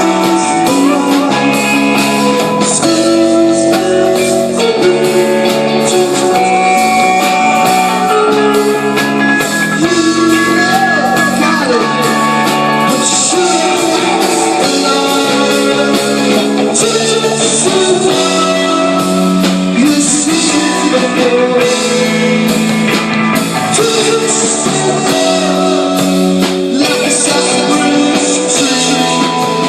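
Live psychedelic rock band playing: electric guitars holding chords and bending notes over bass guitar and drums with steady cymbal hits.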